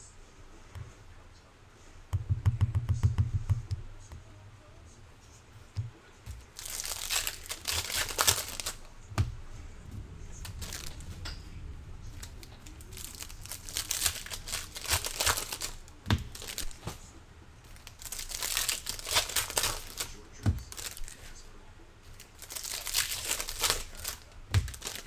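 Foil trading-card pack wrappers being torn open and crinkled, in four separate bursts of rustling a few seconds apart, with a few soft thumps between them.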